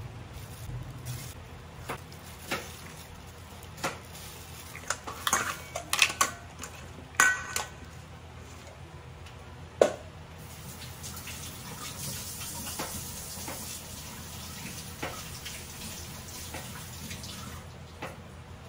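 Boiled mussel meats being handled and dropped into a glass bowl: scattered clicks and light knocks against the glass, busiest about five to seven seconds in, with one sharp knock near ten seconds, over a steady low hiss.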